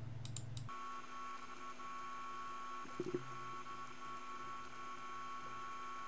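A faint steady hum of several held tones, one pair high-pitched, after a few soft clicks at the start, with a brief blip about three seconds in.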